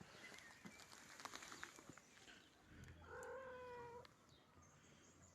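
A domestic cat gives one long, even meow about three seconds in, after a stretch of faint clicks and rustling.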